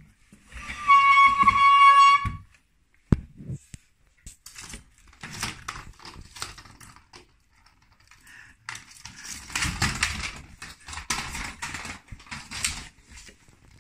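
A dog gives one long, high, steady whine about a second in. A sharp click follows, then scattered scuffing and rattling from the dogs and their treat ball on the tile floor, busiest near the end.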